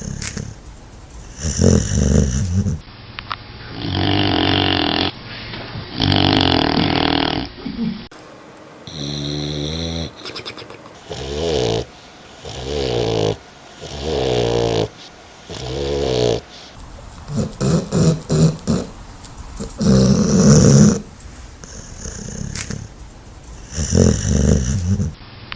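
A dog snoring in deep sleep: loud rasping snores mostly one to two seconds apart, with a quick run of short snorts about two-thirds of the way through.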